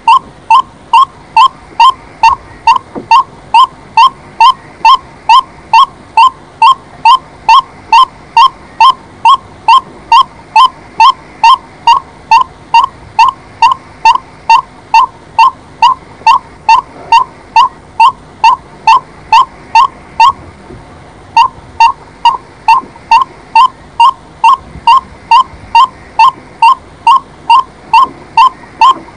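White-breasted waterhen calling: a loud, steady series of short, slightly rising hooting notes, about two and a half a second, broken by one short pause about twenty seconds in.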